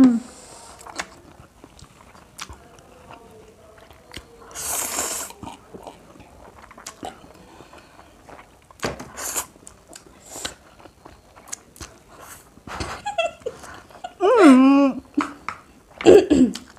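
Instant noodles being slurped and chewed close to the microphone, with wet chewing clicks throughout and a couple of longer slurps. Short vocal sounds come near the end.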